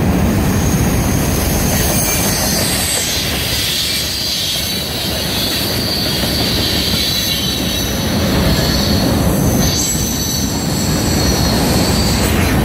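Freight train passing close by: a steady heavy rumble of wheels on the rails, with a high-pitched squeal from the wheels running throughout.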